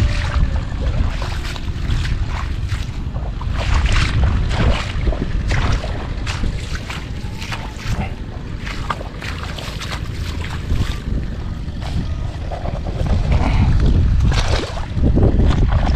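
Water splashing and sloshing in a flooded onion-field furrow as a shovel works the mud, in many short irregular splashes, over a constant low rumble of wind on the microphone.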